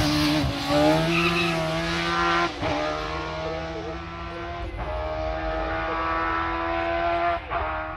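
Race car engine under hard acceleration, a high, even note that climbs slightly and breaks briefly three times, about every two to three seconds, as it shifts up through the gears.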